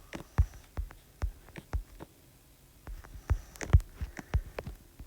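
Footsteps on the floor, about two a second, followed by a cluster of sharper knocks and clicks between about three and a half and five seconds in.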